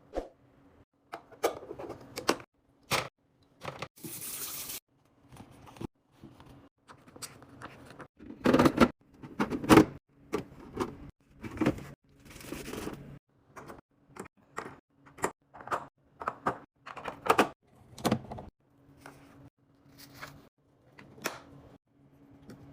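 Food containers, jars and packaging being handled and set down while restocking a refrigerator: an irregular run of clicks, clunks and rattles, with a short hiss about four seconds in. A faint steady hum comes in near the end.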